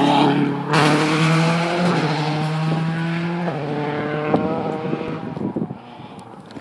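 Rally car engine running hard at high revs as the car drives away along the stage. The pitch steps down about three and a half seconds in, and the sound fades into the distance.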